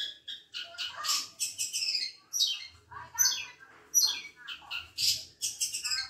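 Long-tailed shrike (cendet) singing a fast, varied song: scratchy chattering notes and phrases, many of them sweeping down in pitch, several each second.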